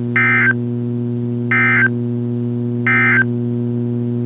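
NOAA Weather Radio SAME end-of-message signal: three short, identical bursts of warbling digital data tones, about 1.4 s apart, closing the required weekly test, over a steady hum.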